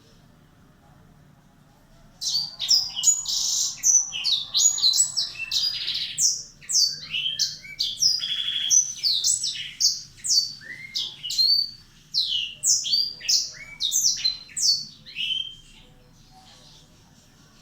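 Blackthroat (black-throated canary) singing: a long, fast, continuous song of short high sweeping notes. It starts about two seconds in and stops near the end.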